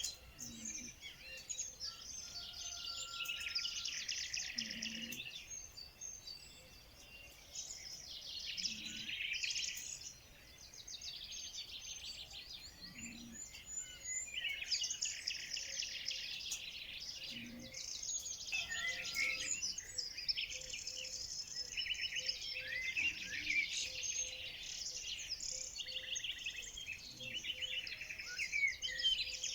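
Several songbirds singing and chirping at once: a dense, continuous chorus of rapid trills and chirps.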